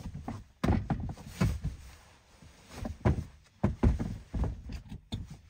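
Irregular knocks and thuds of things being handled, shifted and set down, about a dozen over a few seconds with short quiet gaps between.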